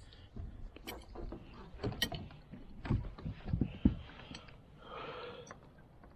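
Fishing gear handled in a kayak: irregular clicks and taps with several dull knocks, bunched about two to four seconds in, then a short rustle.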